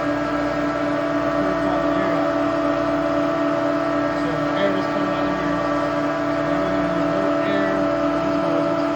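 Refrigeration compressor rack running with a steady drone: one constant tone and its overtones that holds without change.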